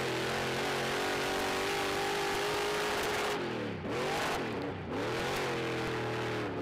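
Dirt track Modified's engine running hard at high revs. About three and a half seconds in, the pitch drops steeply twice in quick succession as the throttle comes off, then climbs back up.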